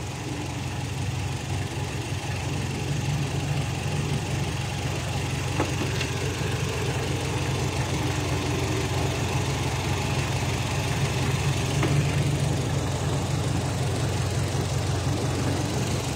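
Kia Rio's engine idling steadily, running with a borrowed engine computer box fitted in place of the suspect one.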